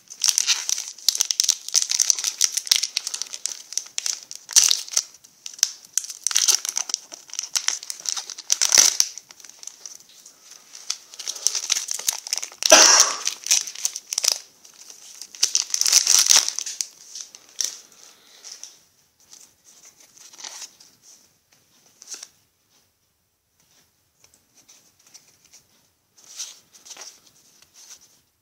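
Foil wrapper of a Pokémon trading card booster pack crinkling and tearing as it is opened, loudest about 13 seconds in. After that come fainter, scattered rustles as the cards are handled.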